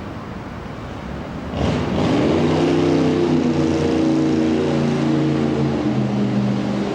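Speedboat engine revving up sharply about a second and a half in, then running loud and steady at high power.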